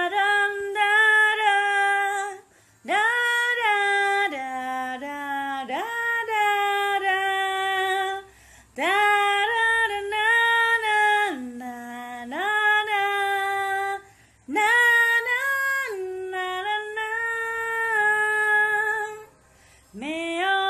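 A woman singing unaccompanied, in long held and gliding notes. The phrases last about five seconds each, with a short break for breath between them.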